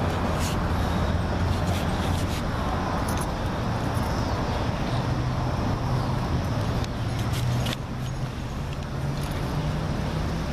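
Steady city traffic noise with a low engine hum that shifts up in pitch about halfway through, and a few faint clicks.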